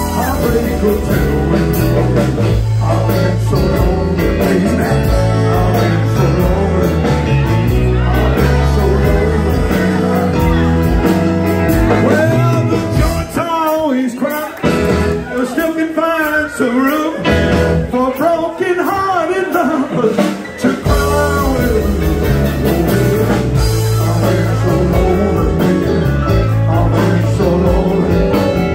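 Live rock-and-roll band playing, with drums, electric guitar and bass under a male singer. The bass and drums drop back for a stretch in the middle while the voice carries on, then the full band comes back in.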